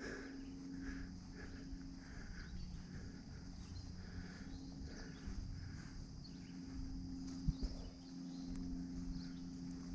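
Faint outdoor ambience of insects calling: a soft call repeating roughly once a second, over a low steady hum.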